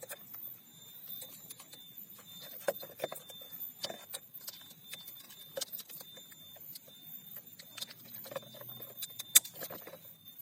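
Irregular light clicks, taps and small rattles, with one sharper click about nine seconds in.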